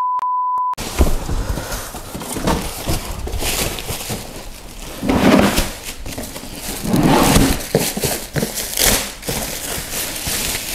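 A short steady electronic beep, under a second long, then continuous crinkling and rustling of thick clear plastic wrap as a large statue box is handled and pulled out of it, with louder crinkles about halfway through and again near the end.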